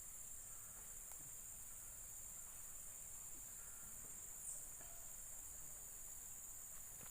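Insects trilling in a steady, high-pitched chorus, with one short chirp about four and a half seconds in.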